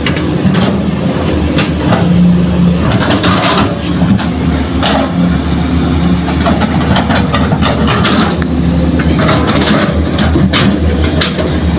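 Hitachi hydraulic excavator's diesel engine running loudly as it loads a dump truck, with scattered knocks and clatter of soil and stones dropping into the truck's steel bed.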